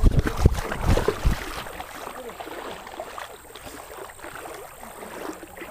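Splashing and sloshing water from a hooked fish being reeled in and landed, with several heavy knocks on the microphone in the first second and a half.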